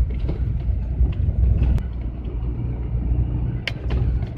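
GAZelle van driving, heard from inside the cab: a steady low rumble of engine and tyres on old patched asphalt. A few short sharp clicks or knocks come through, the clearest near the end.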